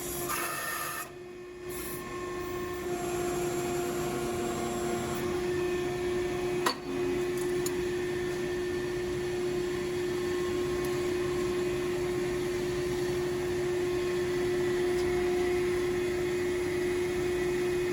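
Shop machinery running with a steady hum and one constant tone, with a single sharp click about seven seconds in.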